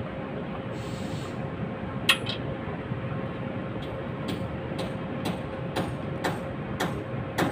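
Steady mechanical hum and rumble of site machinery, with a brief hiss about a second in, one sharp click about two seconds in, and then a run of evenly spaced clicks, about two a second, through the second half.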